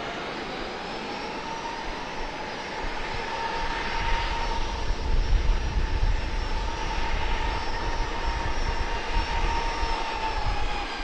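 Boeing 737-800's CFM56-7B turbofans at takeoff thrust during the takeoff roll. A steady fan whine runs throughout, and a deep rumble builds a few seconds in. The whine falls slightly in pitch near the end.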